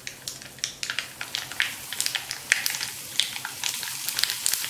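Hot gingelly (sesame) oil tempering with mustard seeds, crackling with many sharp pops. It sizzles as it is poured over the salted, spiced star gooseberries in a steel bowl, the crackling growing denser and the hiss thicker through the pour.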